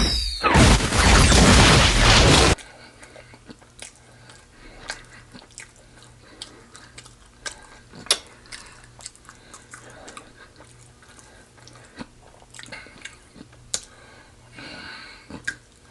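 A loud, harsh burst of noise for about the first two and a half seconds cuts off suddenly. Then comes close-miked chewing of fried chicken, with scattered crunches and clicks.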